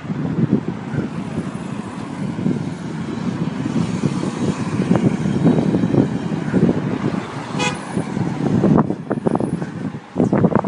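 A DAF XF truck pulling a curtainsider trailer drives past in road traffic, a steady rumble of engine and tyres. A short horn toot sounds about seven and a half seconds in.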